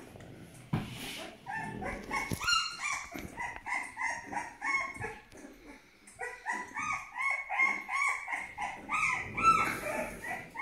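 A twelve-day-old Aksaray Malaklı puppy whining: quick series of short, high-pitched cries, a few a second, in two runs with a short break in the middle.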